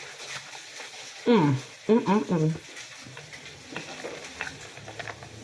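Close-up wet, crackly chewing of a big, messy hot pastrami sandwich with eggs and barbecue chips. About a second in, a person's voice makes a few short, loud sounds with a sliding pitch.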